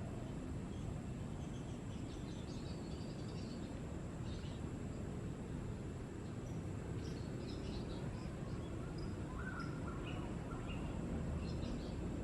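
Faint, scattered bird chirps and short calls over a steady low rumble of outdoor background noise.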